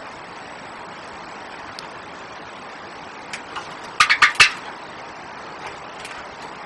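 Pet birds scuffling on their perches while settling to roost: a quick run of five or six sharp clicks and scrapes about four seconds in, with a couple of single clicks before it, over a steady hiss.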